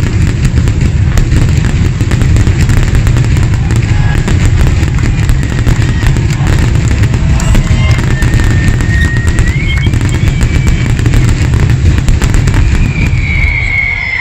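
Dense barrage of aerial fireworks: rapid bangs and crackles running together into a continuous rumble, with a few thin whistles in the second half.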